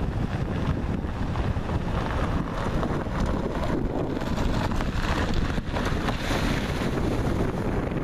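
Wind buffeting the microphone over the tyre and engine noise of a Kia Soul driving past on a loose gravel road. In the second half a splashing hiss rises as the car fords a shallow stream.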